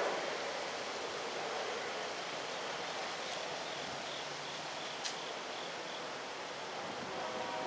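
Steady outdoor rushing noise. Partway through there is a short series of faint, high, evenly spaced chirps, and about five seconds in a single sharp click.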